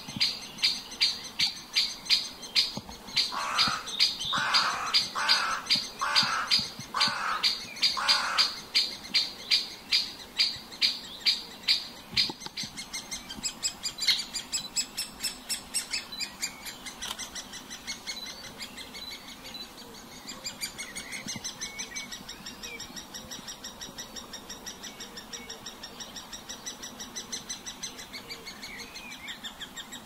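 Great spotted woodpecker calling: a sharp, high call repeated evenly about two to three times a second, with five lower, rougher calls about a second apart mixed in early on. After about twelve seconds the calls become quicker and fainter.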